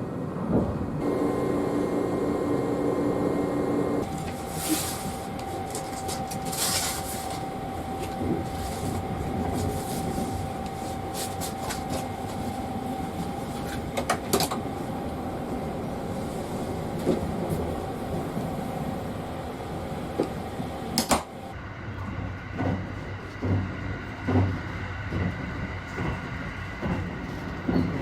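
Inside a moving train: steady running noise with a steady whine, and scattered clicks and knocks like doors and fittings being handled.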